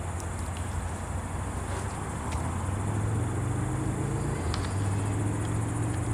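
A motor engine humming steadily, growing louder about halfway through.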